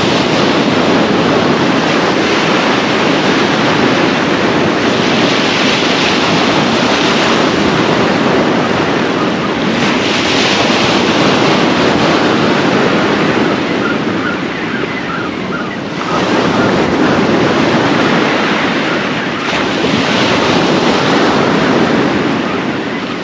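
Sea surf breaking and washing up the beach, a continuous noise that swells with each incoming wave every few seconds.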